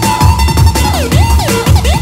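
Loud electronic dance music from a live keyboard band, with a heavy kick-drum beat and a synth lead that slides down and back up in pitch over and over.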